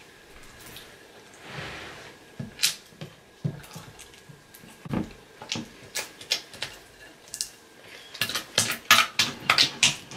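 Spatula stirring sticky, half-activated slime in a bowl: scattered wet clicks and taps that turn quick and busy over the last two seconds.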